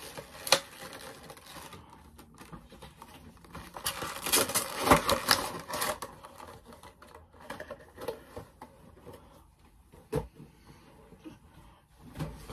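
A cardboard Funko Pop box being handled: rustling and light taps, with a denser stretch of rustling about four seconds in and a single thump near ten seconds.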